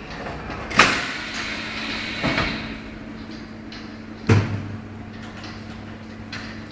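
A phone screen cleaner welding machine cycling: three sharp mechanical knocks about a second and a half apart, each dying away quickly, over a steady electrical hum.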